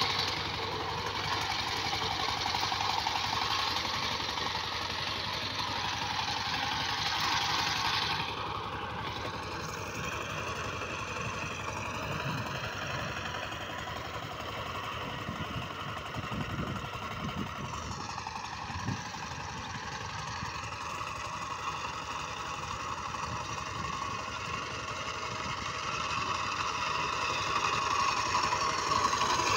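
Two-wheel power tiller's 12-horsepower single-cylinder diesel engine running steadily under load while its rotary tiller churns dry stubble soil. It grows fainter about eight seconds in as the tiller moves off, and louder again near the end as it comes back.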